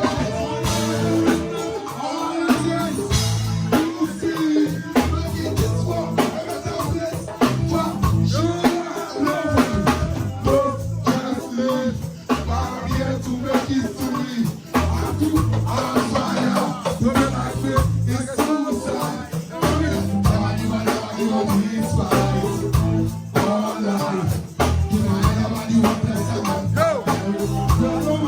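Live band playing a dancehall riddim, with a steady beat and heavy bass.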